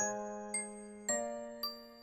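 Background music: bell-like struck notes, about two a second, each ringing out and fading.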